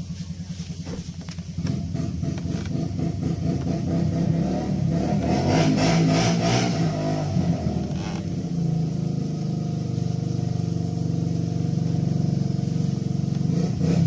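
A motor vehicle's engine running close by. It picks up about two seconds in, revs higher near the middle with a brief hiss over it, then settles to a steady run.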